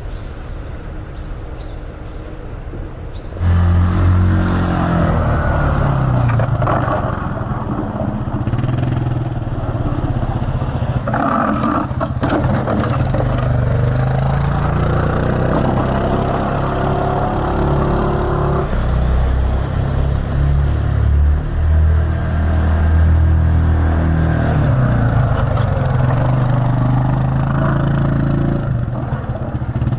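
A motor vehicle engine comes in suddenly about three seconds in and runs loudly, its pitch rising and falling repeatedly as it revs.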